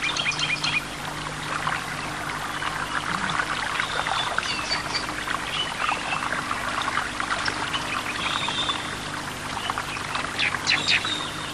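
Water splashing and trickling as an echidna paddles through a shallow creek: many small, quick splashes that keep coming, over a steady low hum.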